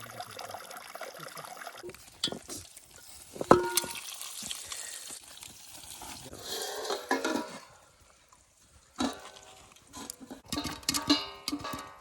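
Camp cooking: a metal utensil knocks and rings against a pot about three and a half seconds in, then stirring and scraping in the pan, with more clicks and clatter near the end.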